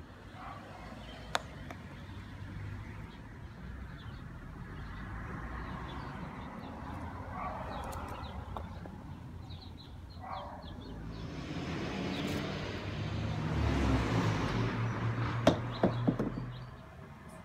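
Outdoor street ambience with a car driving past, swelling about eleven seconds in and fading near the end. A few sharp clicks come once early and twice near the end.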